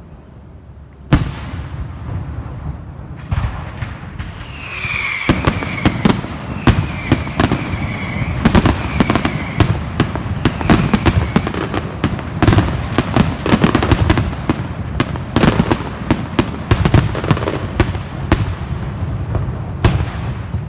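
Fireworks going off: a single loud bang about a second in, then from about five seconds a rapid barrage of bangs, several a second, until just before the end, with a high wavering whistle over the first seconds of the barrage.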